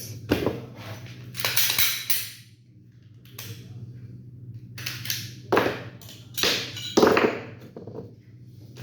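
Glock 17 pistol parts being handled and taken apart: a run of sharp metallic clicks, taps and scrapes at irregular intervals, over a steady low hum.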